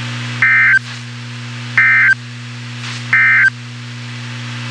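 Emergency Alert System (SAME) end-of-message data bursts on a weather radio broadcast: three short, buzzy electronic warbles about a second and a third apart, marking the end of the warning message. A steady low hum runs underneath.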